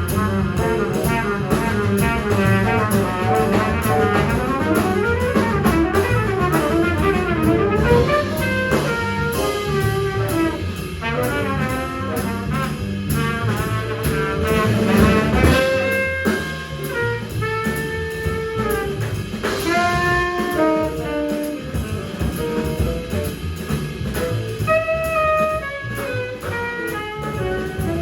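Live small-group jazz: tenor saxophone and trumpet playing over a rhythm section with drums. Fast, busy horn lines fill the first half, and from about halfway the horns move to long held notes.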